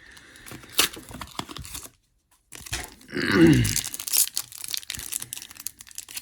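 A Pokémon card pack wrapper being torn open and crinkled. The loudest stretch, about three seconds in, carries a falling squeak along with the tearing.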